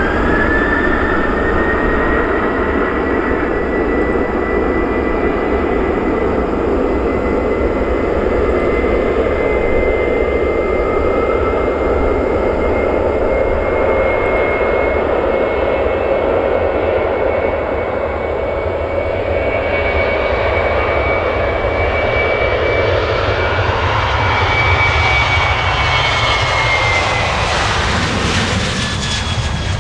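Boeing 737-300's twin CFM56-3 turbofans at takeoff thrust: a steady high whine over a broad jet roar, the whine edging slightly up in pitch. In the last several seconds the sound grows hissier and the whine drops in pitch as the jet draws level.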